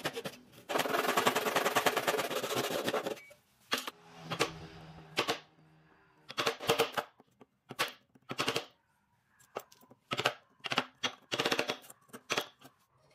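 Hand saw cutting across a softwood board in quick strokes for about three seconds, then a chisel chopping out the waste between the saw cuts in a series of about a dozen separate sharp knocks.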